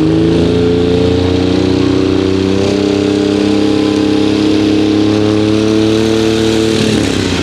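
Diesel pulling truck's engine revving up and holding at high rpm, then dropping off near the end, as the crew tries to get a turbo that won't spool to spin up.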